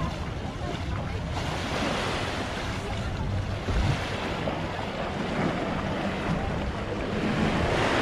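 Small waves washing onto a sandy shore, the hiss of the surf swelling and easing, with wind buffeting the microphone.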